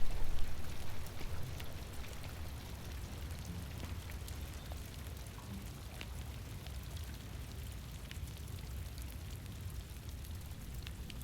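Steady rain: an even hiss with scattered drops ticking, after a louder sound that fades away over the first second.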